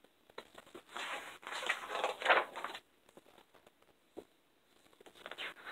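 Paper rustling as the large glossy pages of a wall calendar are handled and turned over, with a longer rustle in the first half and a single light tick about four seconds in.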